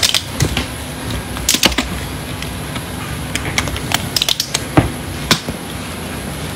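Rolling carry-on suitcase being handled, with irregular sharp clicks and knocks from its handle and wheels, the loudest nearly five seconds in, over a steady background rumble.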